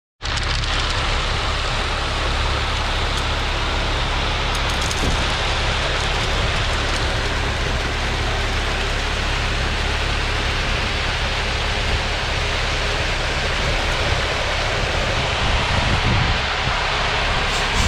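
Concrete mixer truck running steadily, a constant engine drone under an even wash of noise as the loaded drum turns.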